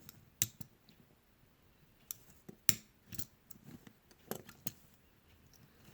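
Scattered sharp clicks and taps, about six over several seconds, from a small die-cast alloy toy dump truck being handled.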